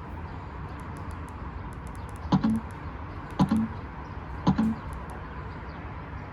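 Three button presses on a JBL Charge 5 Bluetooth speaker about a second apart, each a sharp click followed by a short low beep from the speaker.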